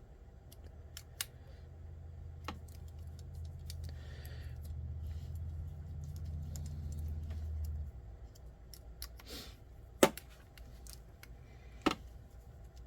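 Light clicks and taps of small screws, plastic chassis parts and a hand screwdriver being handled, with two sharper clicks near the end. A steady low hum sits under the first two-thirds and then stops.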